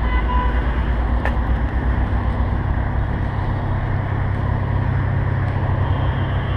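A heavy vehicle engine running with a steady low rumble, with a single click about a second in.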